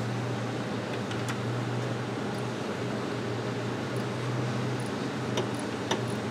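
Steady whir of a pit cooling blower running, with a constant low hum and a few light clicks near the end.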